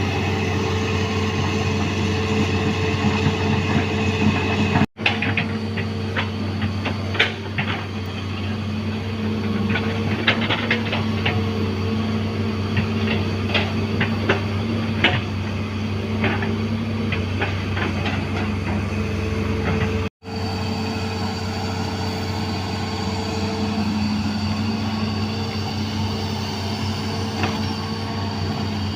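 Diesel engine of a 20-ton hydraulic excavator running steadily under load while it digs and swings dirt. Scattered clanks and knocks come through the middle part.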